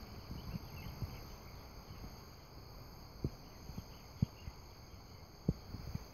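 Quiet outdoor ambience: a low, even background rumble with faint, scattered high chirps and three soft, short thumps in the second half.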